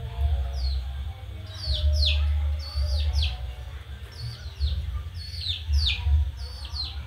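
Chicks and ducklings peeping: short, high peeps that each drop sharply in pitch, coming in quick clusters of two or three, over a steady low hum.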